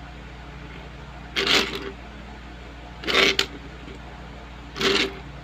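Diecast metal toy cars being slid and turned on a tabletop by hand: three short scraping, rolling rustles about a second and a half apart, over a steady low hum.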